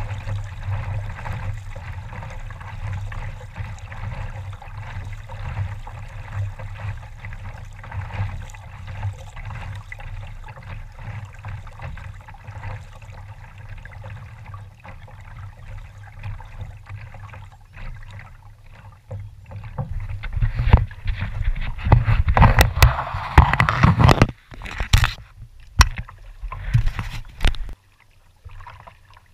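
Kayak moving over calm sea water: paddle strokes and water swishing along the hull. For several seconds near the end come louder, uneven splashes and a few sharp knocks.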